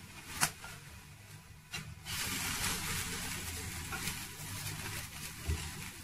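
A spatula knocks twice against a nonstick frying pan as a folded savory pancake is turned. From about two seconds in, the pancake frying in the lightly oiled pan gives a steady sizzle.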